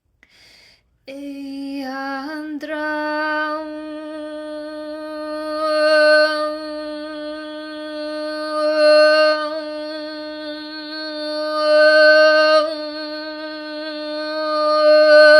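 A woman's voice holding one long sung tone. It starts with a short lower note, steps up after about two and a half seconds, then holds one steady pitch, with the brightness swelling and fading about every three seconds as the vowel shifts.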